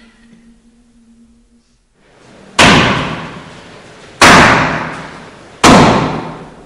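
Three loud, sudden slamming impacts about a second and a half apart, each ringing out and fading over about a second. A swell of noise leads into the first.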